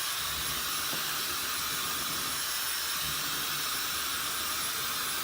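Dyson Supersonic hair dryer running steadily on its lowest speed, blowing cold air: an even rush of air with a thin, high steady tone above it. Its owner calls it really silent.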